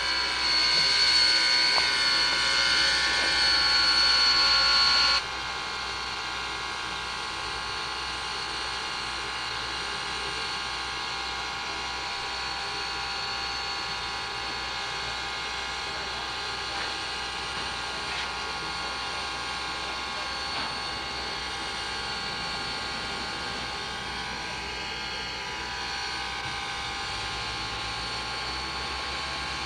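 US Army 2-8-0 steam locomotive No. 610 running as it rolls slowly by: a steady mechanical sound with several high whining tones. It is louder for the first five seconds, then drops suddenly to a lower, even level.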